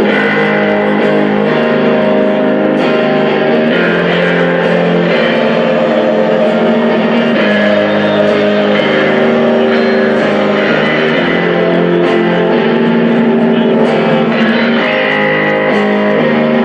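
Live rock band playing a slow, heavy song, with electric guitar out front over bass and drums.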